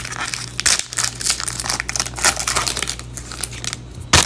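Foil trading-card pack wrapper crinkling as it is handled and torn open, with a sharp click near the end.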